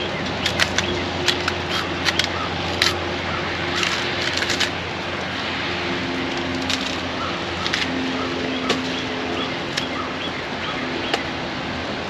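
Small knife cutting and scraping the peel off a green banana: scattered short clicks and scrapes, with a brief run of them about four seconds in, over a steady background hiss and low hum.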